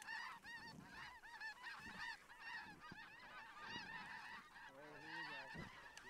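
A flock of snow geese calling overhead: a faint, continuous chorus of many overlapping high yelping honks, several a second.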